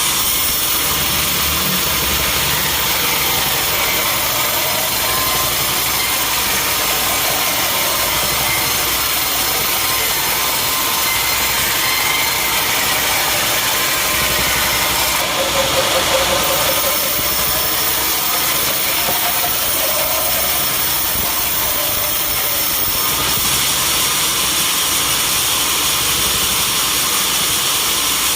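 Sawmill running: the steady, loud drone of its engine-driven saw, with a brief shift in tone about halfway through.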